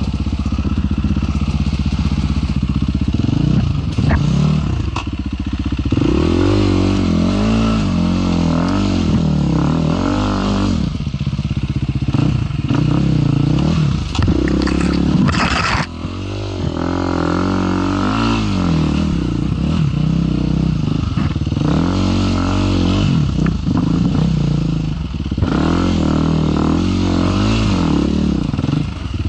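KTM 350 EXC-F's single-cylinder four-stroke engine revving up and falling back again and again in short throttle bursts, worked hard at low speed on a steep, rocky climb. A brief clatter about halfway through.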